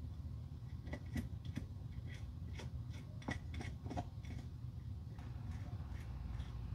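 Small wire brush scrubbing the bare plastic top of a shoe heel block in quick, scratchy strokes, most of them in the first four seconds and sparser after.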